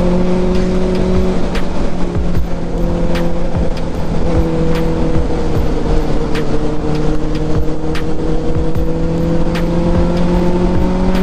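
Four-cylinder sport motorcycle engine running steadily at cruising speed, with wind rushing over the microphone. Its pitch holds nearly level, easing down a little midway and rising slightly near the end.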